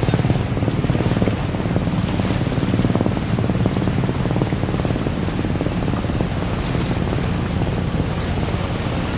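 Harbour ambience: a steady wash of water and wind with a low rumble underneath.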